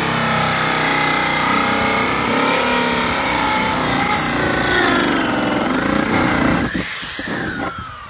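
Cordless drill driving a 4.5-inch hole saw through a sump basin wall: a loud, steady grinding whine, its pitch wavering under load, dying away about seven seconds in.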